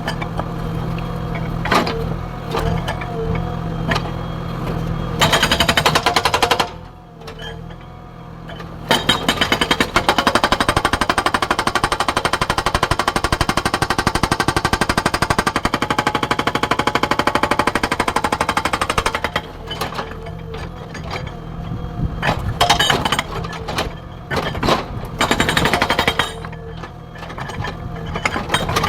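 Hydraulic breaker on a JCB 3DX backhoe loader hammering rapidly, over the steady hum of the backhoe's diesel engine. There is a short burst about five seconds in, a long run of about ten seconds starting near nine seconds, then several shorter bursts near the end.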